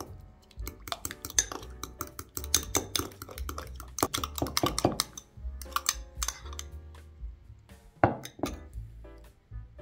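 Metal utensil stirring a thick creamy dressing in a glass tumbler, clinking and scraping against the glass in quick, irregular strokes, with a single sharper clink about eight seconds in. Background music plays underneath.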